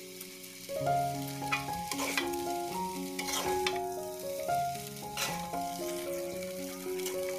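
Corn vermicelli with shrimp stir-frying in a metal wok: a steady sizzle, with a metal spatula scraping and tossing the noodles several times. Soft background music plays underneath.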